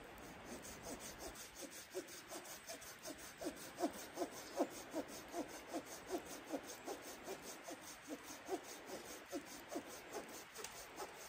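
Folding hand saw with a coarse 7 TPI carbon-steel blade sawing dead wood in quick back-and-forth strokes, about three a second. Each stroke gives a short pitched rasp. The cut is slow and laboured, which the owner puts down to the blade not biting well despite its big teeth.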